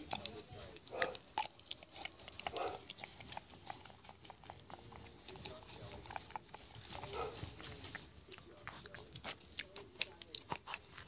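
Pet pig eating macaroni and cheese out of a cup: quick, wet smacking and chewing clicks, coming thicker toward the end.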